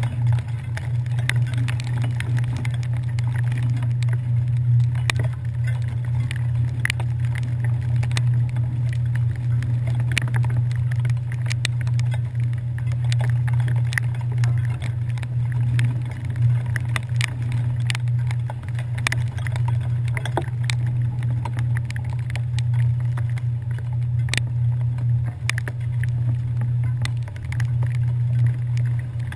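Steady low drone of a passenger ferry's engines running under way on the Hudson, with scattered sharp ticks of rain striking the camera.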